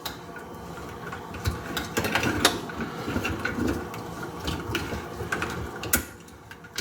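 Dishwasher upper rack being fitted back onto its runners: irregular plastic and wire clicks and knocks as its locating buttons are pushed into their slots.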